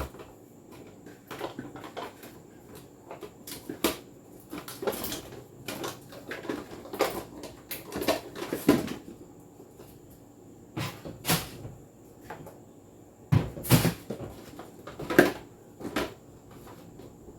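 Bottles, jars and containers being handled in a refrigerator and set down on its shelves: a string of irregular clacks and knocks, loudest near the end.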